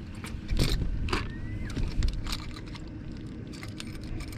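Scattered clicks, knocks and clinks of handling fish and culling gear on a bass boat, over a low steady rumble, with one brief rising squeak about a second in.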